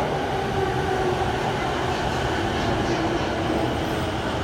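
Electric commuter train running on the Chuo-Sobu local line, with a steady motor whine over the rumble of its wheels.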